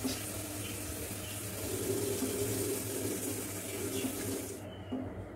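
Water running steadily from a tap, shut off near the end.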